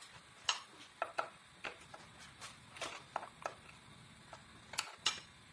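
Combination pliers clicking and scraping, metal on metal, as they grip and work a rusted nut on a blender blade shaft. About a dozen short, irregular clicks.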